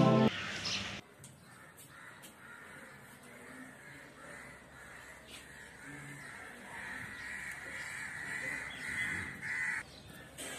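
A music track ends in the first moment, then crows cawing, louder in the second half and cutting off shortly before the end.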